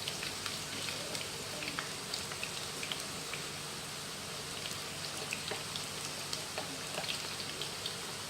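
Breadfruit pieces deep-frying in hot oil: a steady sizzle with many small scattered pops and crackles.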